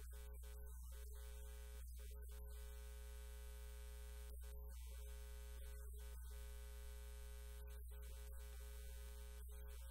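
Steady electrical mains hum and buzz: a low drone with many evenly spaced overtones, fairly faint, its upper part dropping out briefly now and then.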